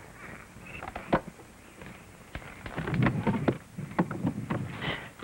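Knocks and clatters of hard objects being handled: a sharp click about a second in, then a run of clacks and knocks through the middle. Faint insect chirring goes on underneath.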